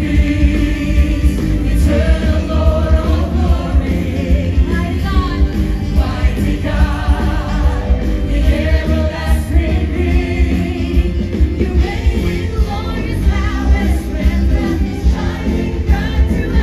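Gospel music with a choir singing over a steady, heavy bass line.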